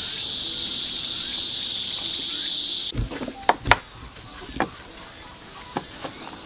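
A dense chorus of insects, a loud steady high buzz. About three and a half seconds in come a few sharp knocks and taps, from a hand brush being worked over wooden steps.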